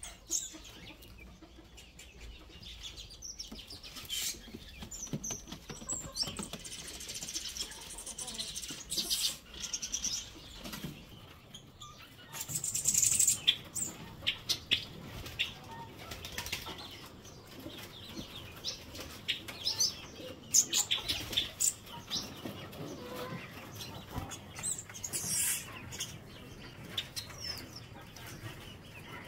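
Caged birds fluttering and flapping their wings in uneven bursts, mixed with many short, high chirps. The loudest bursts come about halfway through and again about two-thirds of the way in.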